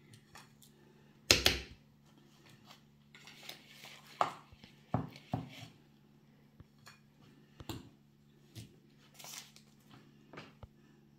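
Metal spoon clinking and scraping against a metal bowl while ground walnuts are scooped out and scattered, a handful of separate clinks with the loudest about a second in. A faint steady low hum runs underneath.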